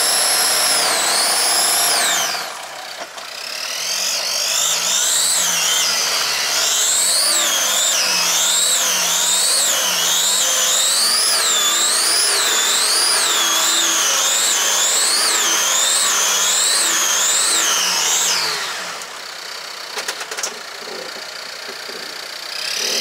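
Off-road 4x4's engine revved up and down over and over, about once a second, with a high whine rising and falling with the revs, as the vehicle works through a muddy bog. The revving eases briefly early on and drops away near the end, leaving a few clicks.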